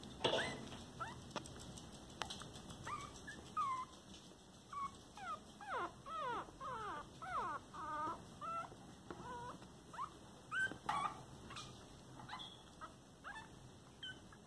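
Chihuahua puppies whimpering: a run of short, high squeaky cries that bend up and down in pitch, thickest in the middle, with a few soft knocks among them.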